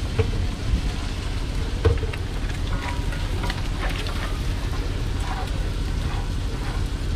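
Omelette egg mixture sizzling and frying in a large metal pan on a street-stall burner, with a metal spatula now and then ticking and scraping against the pan. A low steady rumble runs underneath.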